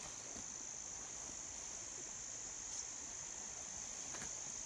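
Steady high-pitched chirring of an insect chorus.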